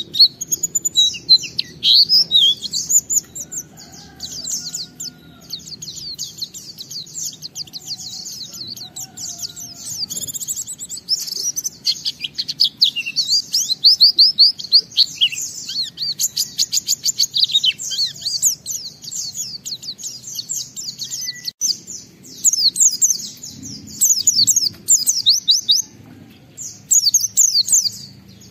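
White-eye (pleci) singing a long, fast, unbroken run of high-pitched twittering notes, with brief pauses near the end. This is the sustained 'ngalas' song that keepers play to set other white-eyes singing.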